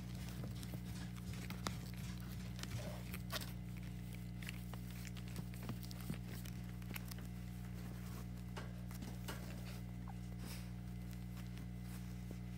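Newborn puppies shuffling and crawling over a quilted puppy pad, making soft scattered scratches and clicks, over a steady low hum.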